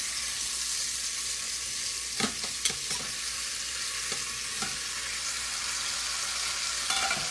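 Browned, flour-coated steak sizzling in its drippings in the bottom of a hot pressure cooker pot, a steady hiss. Several short clinks and knocks against the pot come about two to three seconds in, again near the middle, and near the end.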